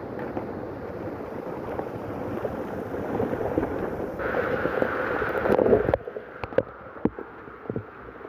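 Heavy rain and rushing runoff water, a dense steady noise that grows louder for about six seconds. It then drops abruptly to a quieter wash with scattered sharp taps and knocks.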